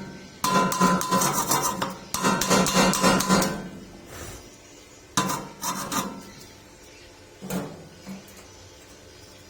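Rapid metal-on-metal tapping on thin steel square pipe, with the pipe ringing, in two runs of about a second and a half each. A few separate knocks follow.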